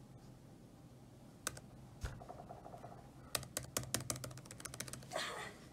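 Typing on a Lenovo laptop keyboard: two single key taps, then a quick run of about a dozen keystrokes.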